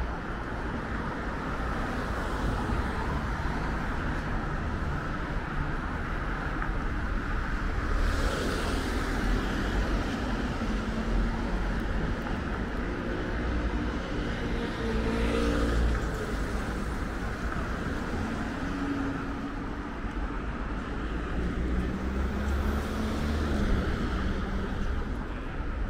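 City road traffic: a steady rush of cars driving past, with several vehicles passing close by one after another.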